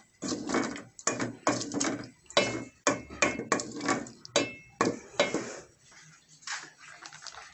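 Wooden spoon stirring a thick tomato and onion masala in an aluminium pot, scraping and knocking against the pot in quick strokes, about three a second. The stirring stops about five and a half seconds in.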